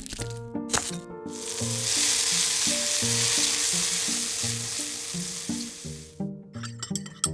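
Food sizzling as it hits a hot frying pan: the sizzle starts about a second in, swells, then dies away about five seconds later. Short clatters come just before it and again near the end.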